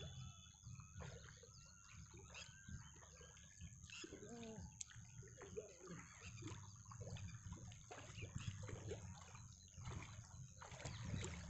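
Faint light splashing and dribbling of shallow water as a fishing net is moved through it, over a low wind rumble.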